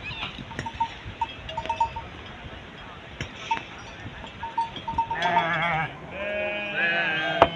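Livestock neck bells tinkling in short clusters, then, from about five seconds in, sheep bleating: three wavering calls one after another.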